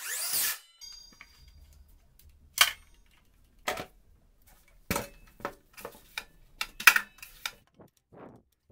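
A cordless circular saw being handled on a wooden workbench: a brief loud rush of noise at the start, then a string of separate sharp knocks and clinks of its metal and plastic body against the bench and in the hands.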